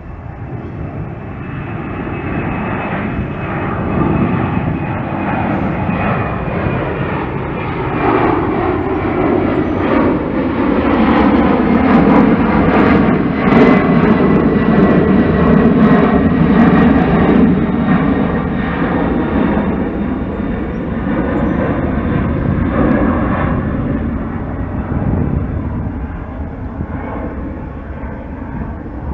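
Twin turbofan engines of a Boeing 767 freighter at climb power passing overhead after takeoff. The engine noise builds, is loudest about halfway through, then slowly fades, with a faint high whine that drifts down in pitch.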